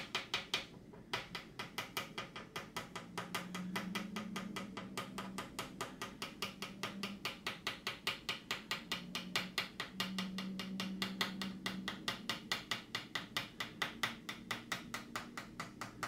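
Quick, evenly spaced light taps, about five a second, with a faint low hum underneath.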